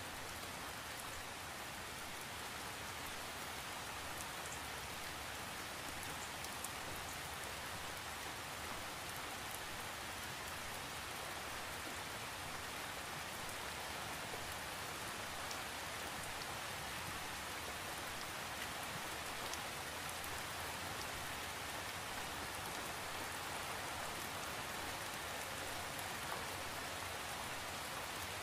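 Steady rain: an even, unbroken hiss with occasional sharper drop ticks.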